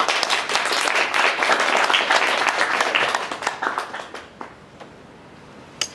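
Small audience applauding, dense clapping that fades out about four seconds in. A single sharp click near the end.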